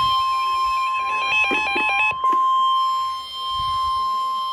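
A Midland weather radio sounding a tornado warning alert: the steady NOAA Weather Radio warning alarm tone from its speaker, with a fast two-tone beeping over it for about a second and a brief break about two seconds in.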